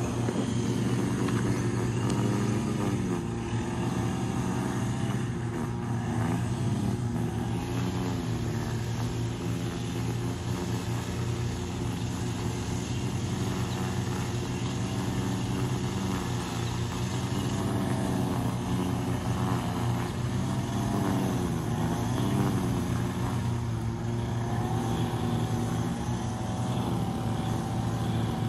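A steady low engine drone, its pitch wavering slowly, with no break.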